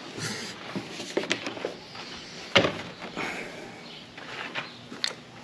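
Plastic gasoline can being handled at a quad's fuel tank during refuelling: scattered knocks and clunks, the sharpest about two and a half seconds in.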